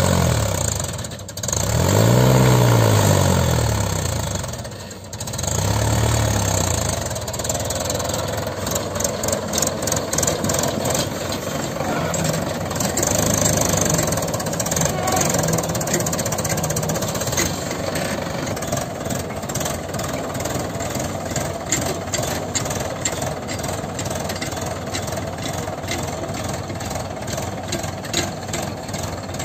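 Diesel engine revving up and down a few times, loudest about two seconds in. Then the Mahindra 585 DI tractor's four-cylinder diesel runs steadily under load, pulling a trolley heaped with soil, with a rapid uneven clatter.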